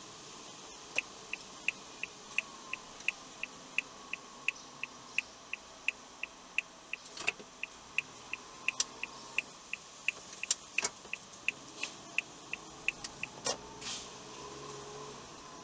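A car's turn-signal indicator clicking inside the cabin, a regular tick about three times a second that stops a couple of seconds before the end, over low road and engine noise. A few louder knocks come from the car going over bumps.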